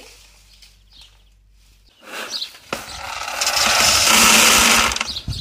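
Dry threshed seeds and chaff poured from a plastic basin onto a wire-mesh sieve. A loud, dense rattle and hiss starts about two seconds in and swells.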